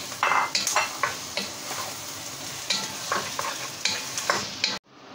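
Chicken breast pieces and chopped onions sizzling in a pot while a wooden spoon stirs them, scraping the pot in a string of quick, irregular strokes. The sound cuts off suddenly near the end.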